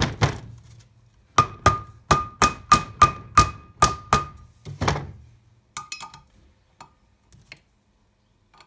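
A hammer taps a Land Rover Defender brake disc down onto the back face of its hub, an almost interference-tight fit, pushing it on square. There are about a dozen sharp metal-on-metal strikes, most of them in a quick run of about three a second, each with a ringing note from the disc. A few light metallic clicks of tools being handled follow.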